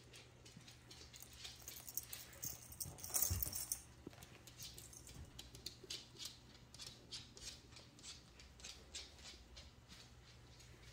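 Cats playing with a feather wand toy: faint rustling and a steady scatter of light taps and clicks, with a louder scuffle of rustling about two to four seconds in.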